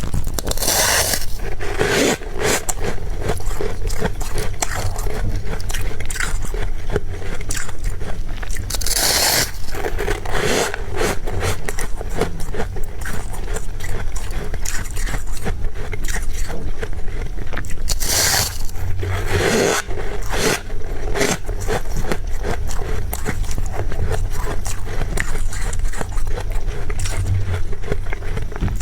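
Freezer frost being scraped and crunched: a dense, continuous run of scratchy crackles, with a few longer, louder scraping strokes about a second in, around nine seconds, and near eighteen to twenty seconds.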